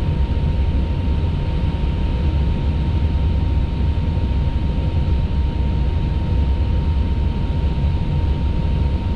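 Steady jet airliner flight-deck noise in flight: engine and airflow making a deep even rumble, with a thin steady tone running through it.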